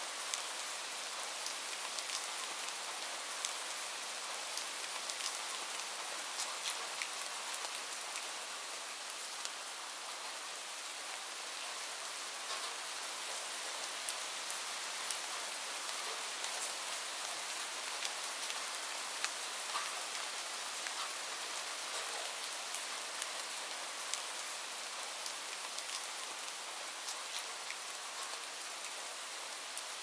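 Light rain falling steadily: an even hiss with the sharp ticks of single drops landing here and there.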